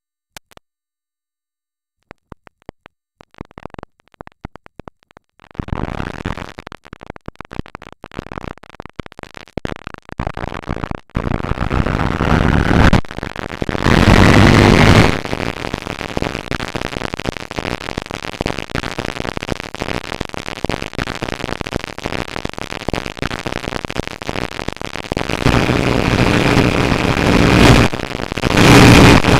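Loud, distorted noisy cacophony: scattered clicks build into a dense wall of noise, with a rising glide partway through and two louder blasts carrying a steady tone, one in the middle and one near the end.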